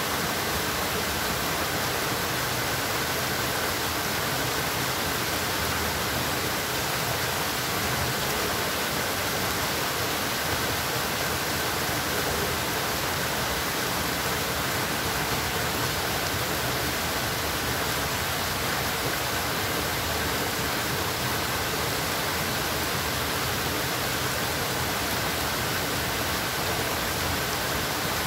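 Steady, even rush of flowing water, unchanging in level throughout.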